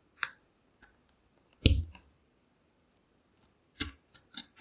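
Handling noise from a lock and small tools being fiddled with at close range: scattered small clicks and taps, one heavier knock a bit under two seconds in, and a quick run of clicks near the end.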